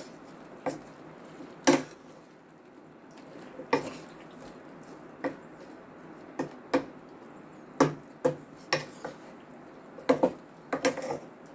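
Wooden spatula stirring chopped vegetables in a metal pan, knocking and scraping against the pan at irregular intervals, about a dozen times.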